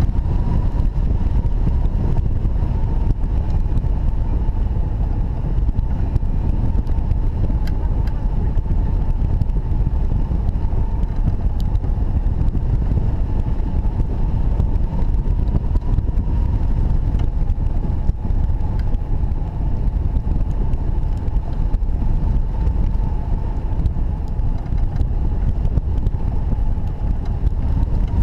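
Wind rushing over a wing-mounted camera's microphone on a hang glider in flight: a loud, steady low rumble, with a faint steady whistle running under it.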